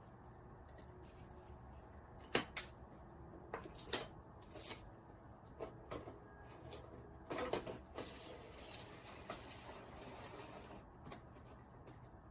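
Small electronic parts being handled and set down on a desk mat: several light clicks and taps in the first half, then a few seconds of rustling and scraping as the stacked LED rings are moved about.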